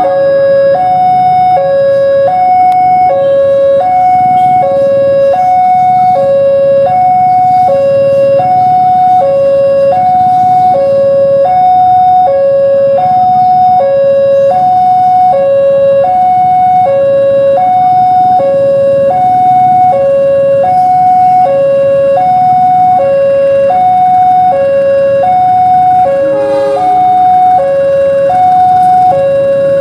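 Two-tone railway warning alarm sounding continuously as a train departs, switching steadily between a low note and a higher note, each held about two-thirds of a second. It signals that a train is on the move and the track or crossing is closed.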